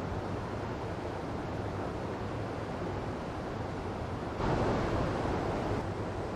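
Small waterfall running with a steady rush of flowing water. About four and a half seconds in, the rush swells louder for a second or so, then settles back.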